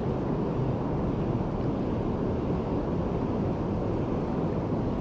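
Steady low rush of river water spilling over a low-head dam.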